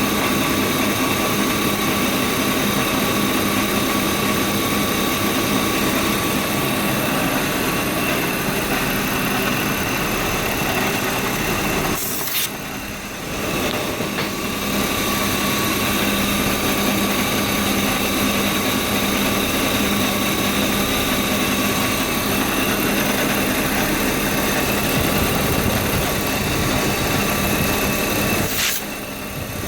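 BMW E36 328i's 2.8-litre straight-six engine idling steadily, with a constant hum and whine. The sound dips briefly twice, about twelve seconds in and again near the end.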